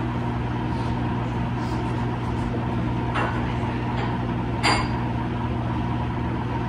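Steady low background hum with a few held tones in it, broken by two brief soft clicks about three seconds in and again past four and a half seconds.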